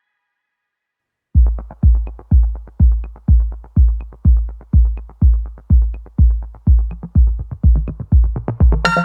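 Electronic background music: after a second or so of silence, a drum-machine kick starts a steady beat of about two hits a second, with a synth chord coming in near the end.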